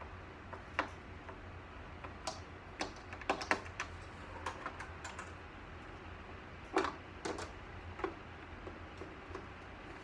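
Irregular light clicks and knocks of hands working on the plastic and metal fittings of a computer nurse cart during assembly, with a small run of quick clicks midway and a few louder knocks later.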